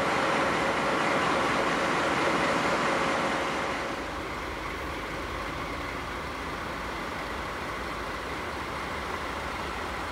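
DD51 diesel-hydraulic locomotive standing with its diesel engines idling, a steady drone. The sound is louder for the first few seconds, then drops to a quieter, even idle about four seconds in.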